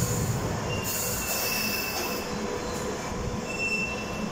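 London Underground Piccadilly line 1973 Stock train running into a deep-level tube platform and slowing, with a rumble and clatter. A hiss comes about a second in, and thin high squeals sound twice as it brakes.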